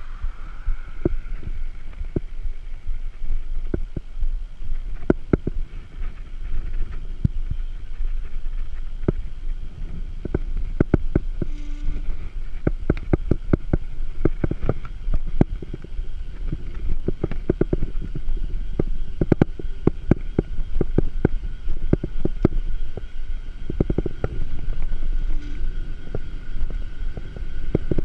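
Wind buffeting the microphone as a low, steady rumble while riding a mountain bike on a paved road, with irregular clicks and rattles from the bike and its mounted gear over the road surface.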